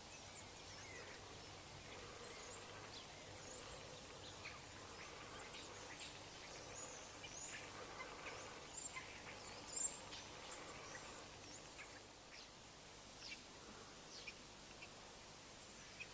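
Faint, scattered chirps and short calls of small birds, about one or two a second, over a quiet steady outdoor background; one call near the middle stands out louder.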